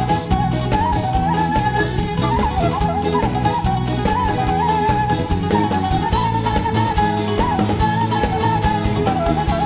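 Live Batak band music accompanying a tortor dance: an ornamented lead melody over a steady drum beat and sustained bass notes.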